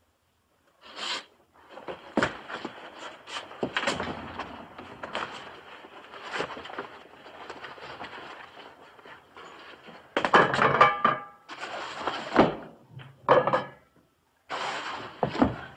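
Footsteps on wood: irregular thuds and knocks of steps on wooden boards, starting about a second in and loudest in a cluster of heavier steps about ten seconds in.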